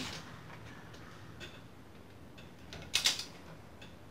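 Torque wrench and socket being worked on a motorcycle's fork-clamp pinch bolts: a few short metallic clicks, with a quick cluster of louder ones about three seconds in.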